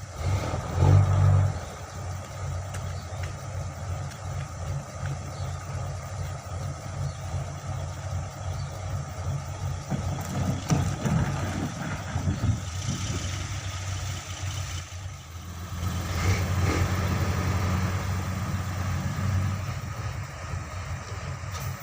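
Heavy diesel dump truck engine running, swelling briefly about a second in and running louder for a few seconds past the middle, as the truck is driven onto a landing craft.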